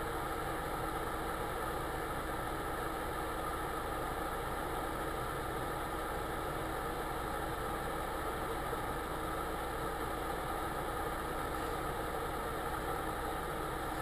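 A car engine idling steadily, heard from inside the cabin, with no change in pitch or level.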